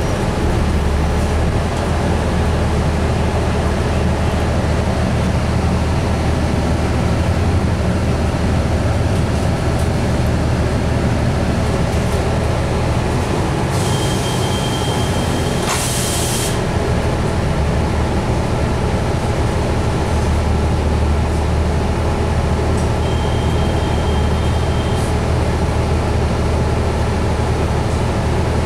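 Interior of a 2004 New Flyer DE60LF hybrid articulated bus under way: a steady low drone from its Caterpillar C9 diesel and Allison EP 50 hybrid drive, with faint steady whines above it. About halfway through, a loud hiss with a thin high tone lasts a couple of seconds, and a shorter thin tone sounds later.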